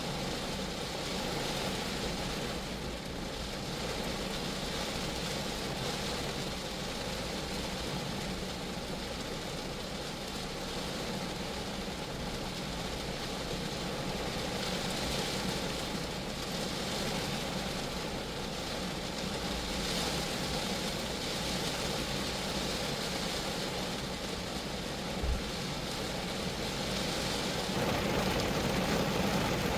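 Steady rain falling on a small car, Geo Metro, the drops hitting its body in an even, unbroken wash of sound. One short low thump about 25 seconds in.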